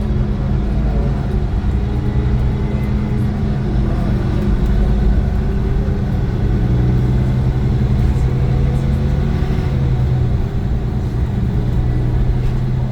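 Iveco Crossway LE 12 bus running under way: the steady hum of its Cursor 9 six-cylinder diesel engine and ZF gearbox, with a few higher tones that shift in pitch over it.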